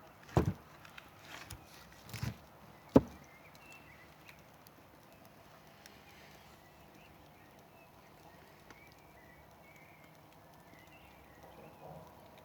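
Campfire wood crackling: a few sharp pops in the first three seconds, the loudest about three seconds in, then a quiet, even burn with faint small ticks.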